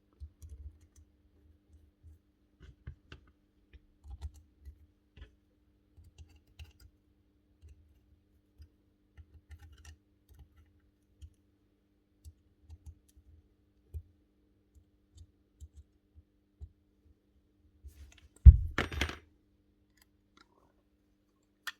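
Small scattered clicks and taps of the nail gun's metal parts being handled and fitted back together. About eighteen seconds in comes one loud thump followed by a short burst of noise.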